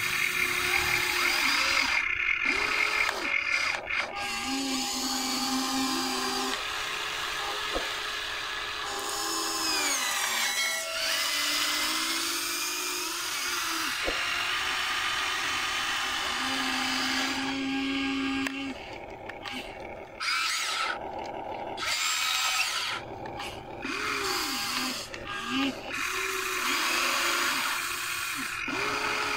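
Electric motors and gearboxes of a Huina RC excavator whining as the boom, arm, bucket and slewing turntable work. The whine comes in stop-start runs, its pitch rising and falling as each motion starts and stops, with a few short pauses in the second half.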